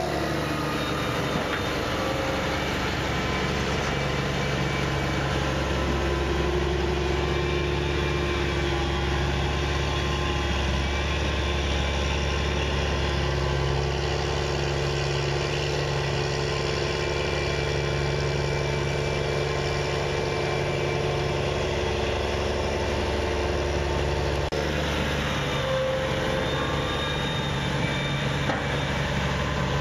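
Diesel engine of a Caterpillar Challenger rubber-tracked tractor running steadily under load as it pushes grass silage up the clamp with a front blade. Its tone shifts about 25 seconds in.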